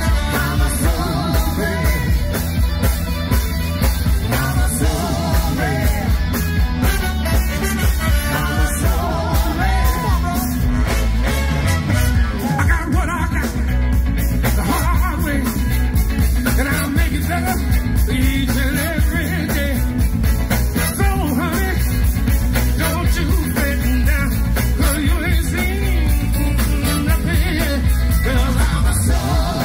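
Live band with a saxophone horn section playing an upbeat rock number through the stage PA, with a singer over drums and a heavy bass line.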